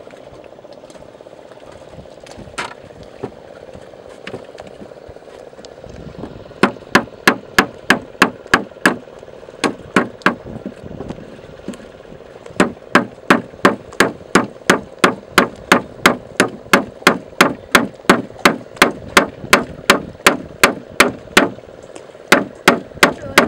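Repeated sharp knocks of oyster shells being struck open on a wooden plank, about two to three blows a second. The knocking starts about six seconds in, pauses briefly around eleven seconds, then runs on steadily.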